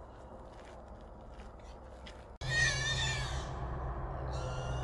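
A feral hog gives one loud, high, wavering squeal lasting about a second. It comes after a faint stretch with a few light clicks, over a low steady hum. Higher steady tones join near the end.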